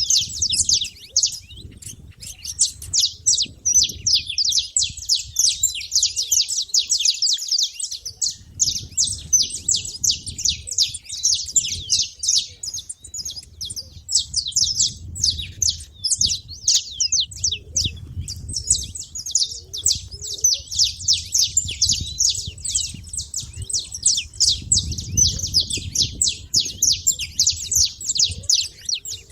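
Saffron finches chirping in a dense, unbroken run of quick, high notes.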